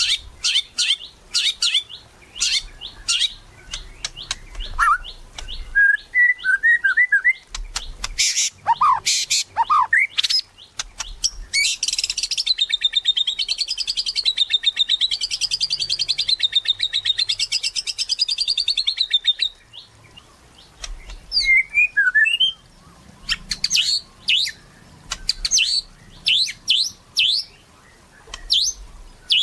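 White-rumped shama (murai batu) singing loudly and constantly: a varied run of rapid chirps, whistles and short rising and falling notes, with a long, fast, wavering trill in the middle lasting about eight seconds.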